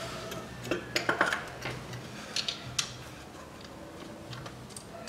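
Hands fitting a metal pipe and rubber hoses under the intake manifold of a Toyota 3S-FE engine: a cluster of light clicks and knocks with brief squeaks about a second in, then a few more sharp clicks around the middle.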